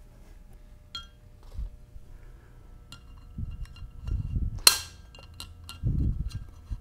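Light metallic clinks and taps as snap-ring pliers are handled and fitted onto a steel snap ring in a billet aluminium transmission mid plate. The sharpest clink comes about two-thirds through, and some of the clinks ring briefly. There are a few dull knocks of the plate and tool against the padded bench.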